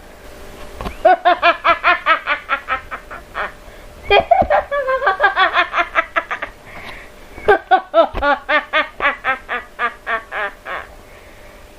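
A woman's crazed, evil villain laugh: three long bouts of rapid, high-pitched cackling, each a quick run of 'ha' pulses.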